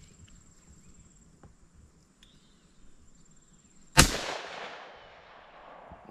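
A single rifle shot from a .17 HMR rimfire about four seconds in: one sharp crack followed by about a second and a half of echo dying away.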